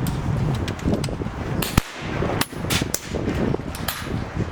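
PCP air rifles firing along a benchrest shooting line: about ten sharp cracks at uneven intervals from several rifles, one louder than the rest a little under two seconds in, over a steady low rumble.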